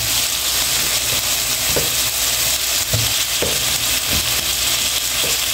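Meat, onion and tomato sizzling steadily in a frying pan, with a few soft knocks as cubes of squash drop in among them.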